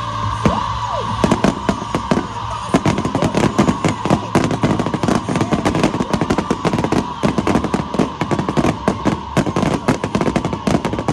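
Fireworks going off: a few separate bangs at first, then from about three seconds in a dense, rapid crackling barrage, with a steady high tone running underneath.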